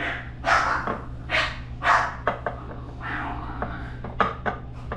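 Dogs playing, making a string of short, separate sounds about every half second to second, with a few sharp clicks near the end, over a steady low hum.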